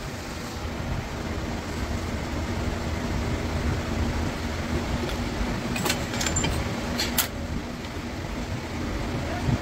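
Steady low mechanical rumble with a constant hum, and a few sharp metallic clicks about six to seven seconds in.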